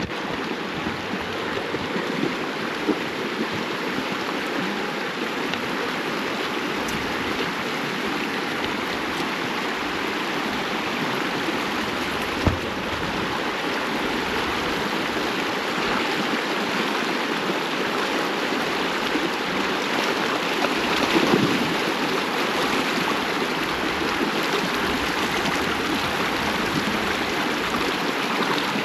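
Glacial meltwater stream rushing steadily, with two short knocks in the course of it.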